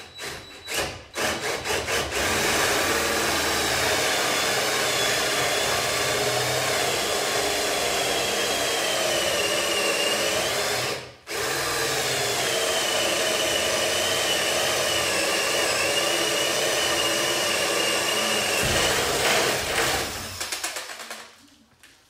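Cordless drill turning a bi-metal hole saw into the edge of a hollow-core wooden door, cutting the latch bore. A few short trigger pulls, then a steady run with a wavering whine, a brief stop about eleven seconds in, and a second long run that ends a couple of seconds before the end.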